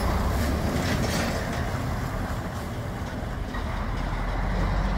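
Diesel engine of a concrete mixer truck running with a steady low rumble as the truck pulls away.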